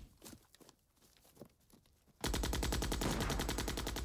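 Long burst of rapid automatic gunfire, about a dozen shots a second, starting about two seconds in after a quieter stretch of a few faint knocks.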